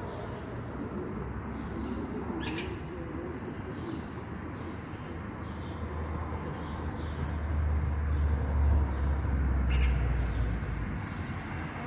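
Outdoor ambience: a low rumble of passing traffic swells in the second half, peaks, and fades. Over it are faint bird calls, with two short high chirps, one early and one near the end.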